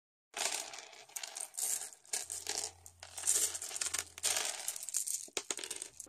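Logo-intro sound effect of hard blocks clattering and clinking as they tumble into place. It comes in irregular rattling bursts and ends with two sharp clicks.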